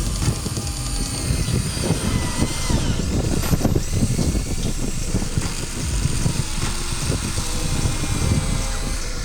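The small electric motors and gearboxes of a radio-controlled excavator or bulldozer running, with a faint high whine over a steady rough clatter.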